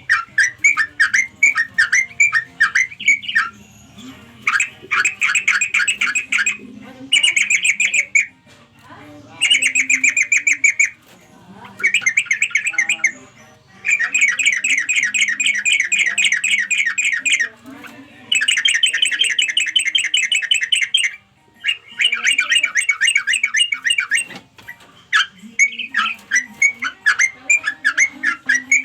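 Yellow-vented bulbul (trucukan) calling: fast runs of rapidly repeated chattering notes, each run lasting two to four seconds, with short pauses between them.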